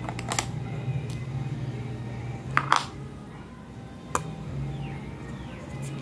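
Small hollow plastic toy-kitchen pieces clicking and knocking as they are handled and set down: a plastic corn cob into a toy pan, a plastic lid picked up. The sharp clicks come a few times, the loudest two close together about two and a half seconds in, over a steady low hum.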